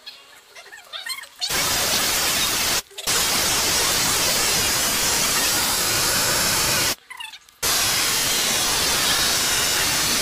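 Loud, even hiss of static that cuts in and out abruptly: it starts about a second and a half in and runs in three stretches of a few seconds each, with short gaps between.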